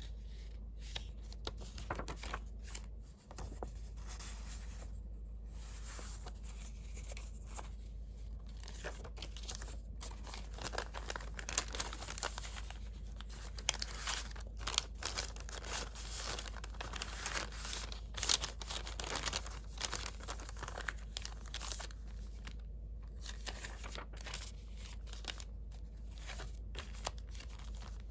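Paper rustling and crinkling as handmade junk-journal cards and a translucent sheet are handled, slid and pulled from pockets, with many short crisp rustles and clicks that are busiest in the middle. A steady low hum lies underneath.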